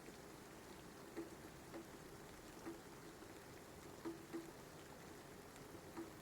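Faint rain: a steady soft patter with occasional single drops plinking, about six of them at uneven intervals.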